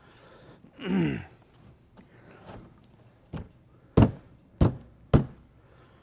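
The plastic back housing of a Dri-Eaz LGR 7000XLi dehumidifier being slid and seated onto the unit: a brief sliding sound about a second in, then four sharp hollow thunks in the second half as the housing is knocked home, the last three about half a second apart.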